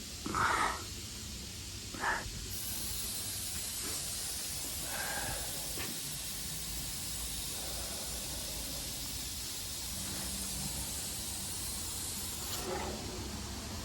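A steady hiss that starts about two and a half seconds in and stops shortly before the end, preceded by two short louder sounds.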